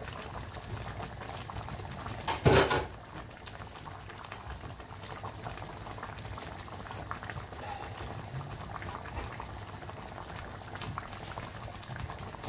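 Curry sauce in coconut milk simmering in an open pan, a steady bubbling with many small pops. A single loud knock about two and a half seconds in.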